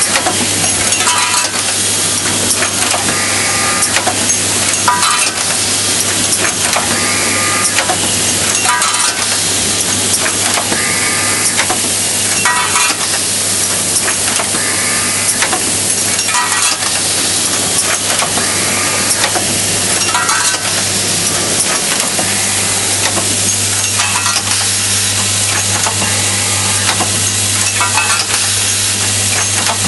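Semi-automatic hinge assembly machine running: a steady hum from the vibratory bowl feeder under a constant metallic clatter of hinge parts, with a louder clattering stroke of the machine's cycle about every two seconds. The hum grows stronger about two-thirds of the way through.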